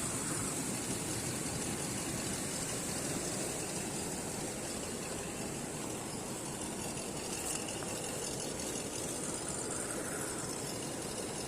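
A 1:10 RC rock crawler's electric motor and geared drivetrain run steadily as it drives, with a constant high hiss-like whine.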